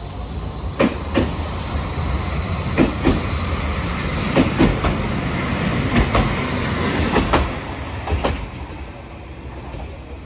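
Hiroden Green Mover articulated low-floor tram passing, its wheels knocking over rail joints in quick pairs every second or two over a low running rumble. The sound swells as the tram goes by and fades as it moves off down the track.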